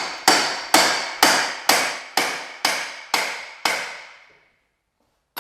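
Hammer blows on metal, evenly about twice a second, each with a short ring. The blows grow fainter and die out about four and a half seconds in.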